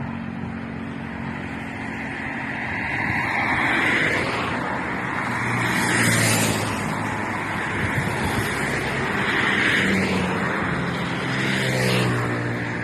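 Road traffic: several vehicles pass one after another, each swelling and fading as it goes by, about four in all.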